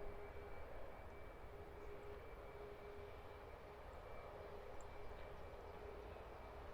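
Faint, steady jet aircraft engine noise with a thin, constant whine, over a low rumble.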